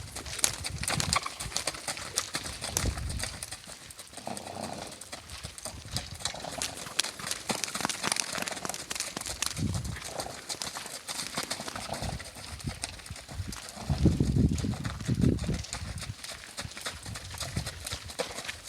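Icelandic horse making repeated low, rumbling sounds after being run, the loudest about 14 to 15 seconds in.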